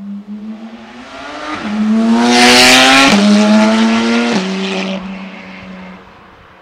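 Porsche 991.1 GT3 RS 4.0-litre flat-six with GMG long-tube headers and center-section exhaust, accelerating hard past with three quick upshifts, its pitch climbing between each. It is loudest in the middle as it passes, then fades away.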